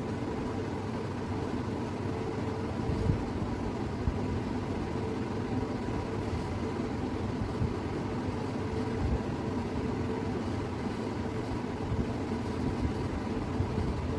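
Steady low rumble with a faint machine hum, unchanging throughout, with a few soft knocks.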